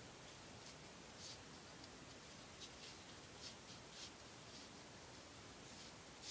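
Near silence: a steady hiss with faint, short rustles of knotting cord being pulled and tucked by hand, several times.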